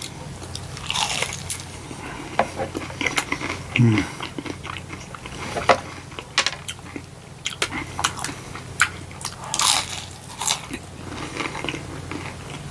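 Close-miked biting and chewing of a crispy fried onion ring dipped in ranch, a run of sharp crunches and wet mouth sounds, with a short hum about four seconds in.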